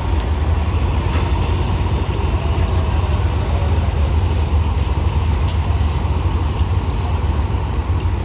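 Diesel locomotive engine running close by, a steady low rumble.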